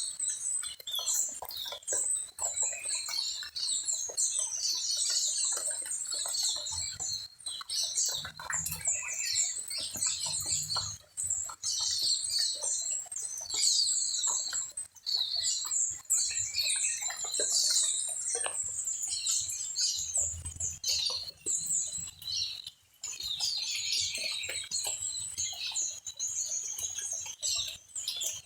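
A dense chorus of many small birds chirping and twittering at once, a continuous mass of short, high chirps.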